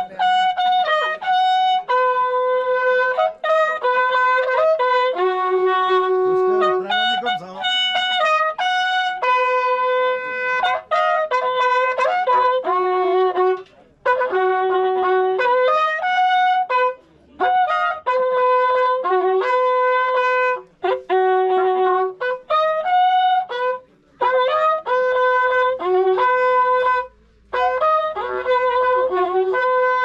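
Andean wakrapuku, the coiled cow-horn trumpet called corneta, playing a melody of long held notes with brief breaks between phrases.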